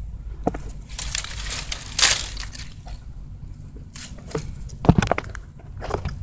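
Dry leaf litter crunching and rustling, with sharp knocks and scrapes from handling the phone, loudest about two seconds in and again just before five seconds.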